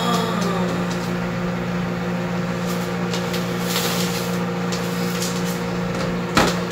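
A steady low hum, like an electric motor or appliance running, holding the same few low tones throughout, with one sharp click near the end.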